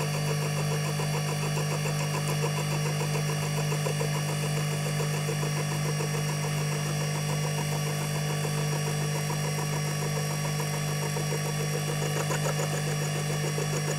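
Milling machine running with an end mill climb-milling into the corner of a small casting. It is a steady machine hum with a fast even pulse, unchanging throughout.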